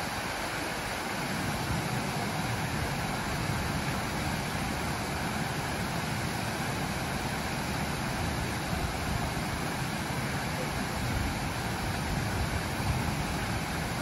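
Water rushing steadily over a stepped stone waterfall and weir, a continuous even splashing rush with a low rumble underneath.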